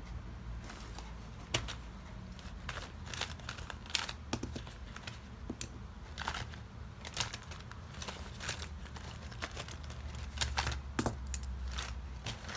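Close-up handling sounds: irregular small clicks, taps and brief crinkly rustles, about one or two a second, over a faint steady low hum.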